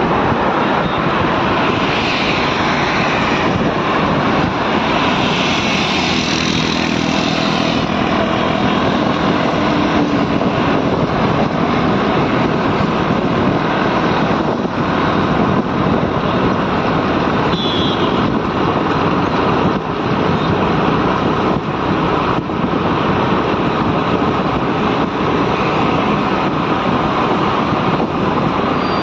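Bajaj motorcycle ridden at road speed: the engine runs steadily under heavy wind noise rushing over the microphone.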